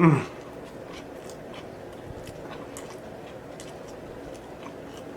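A person chewing a mouthful of BBQ rib sandwich close to the microphone, with faint wet mouth clicks. It opens with a short, loud vocal sound that drops sharply in pitch, like an appreciative "mm".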